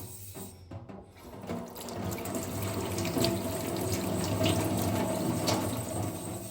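Water running from a tap over a whetstone as it is rinsed clean of the slurry left by a nagura stone. The rush of water starts about a second and a half in and grows louder, with a few light knocks of the stone being handled.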